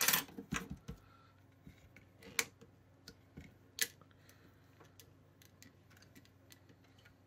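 Small handling sounds of clay-modelling tools on a tabletop: a cluster of clicks and taps at the start, then single sharp taps about two and a half and four seconds in, as a plastic rolling pin and a metal blade are picked up and set down. In between it is faint.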